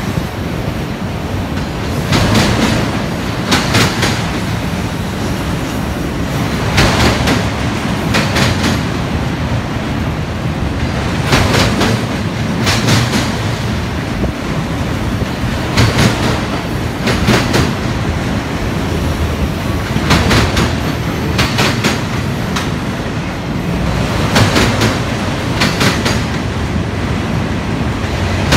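Union Pacific autorack freight cars rolling past with a steady rumble of steel wheels on rail. Clickety-clack comes in pairs of quick clicks about every four and a half seconds, one pair as the wheel trucks at each car end go by.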